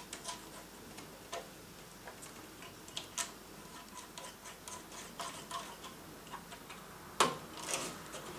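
Faint, irregular small metallic clicks and ticks as CPU cooler mounting screws are turned in by hand through the backplate and motherboard. A louder clack comes about seven seconds in.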